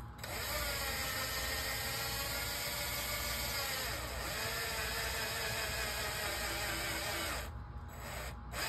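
Cordless drill driving an M3 bolt into a 3D-printed plastic part, its motor whirring steadily. The pitch drops about four seconds in as the motor slows under load, and the motor stops about seven and a half seconds in.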